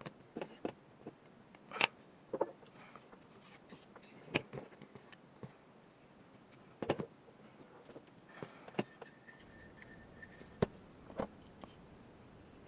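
Scattered clicks and knocks of small metal and plastic airsoft rifle parts being handled and fitted together, with a faint high tone for about two seconds near the middle.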